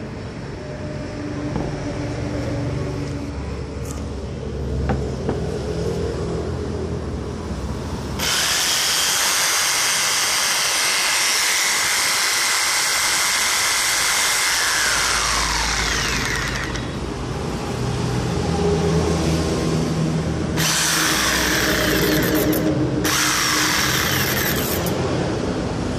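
Makita 4328 jigsaw running with its blade reciprocating, switched on and off in several runs. After a quieter first eight seconds or so it runs loud and high-pitched for about eight seconds, eases off, then gives two short loud bursts of about two seconds each near the end.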